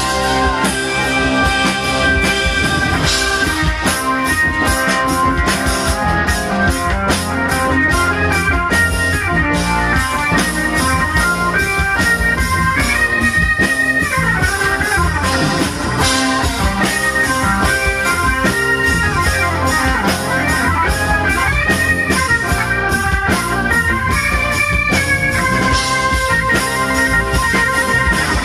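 Live rock band playing an instrumental passage: sustained organ and electric guitar lines over drums and bass.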